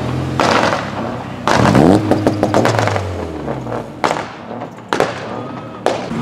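Modified car engine with a loud exhaust revving up about one and a half seconds in as the car accelerates away, then fading out. Three sharp cracks follow in the second half.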